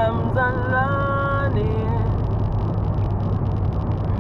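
Steady low engine and road rumble inside a moving car's cabin. Over the first two seconds a high voice sings a few long held notes.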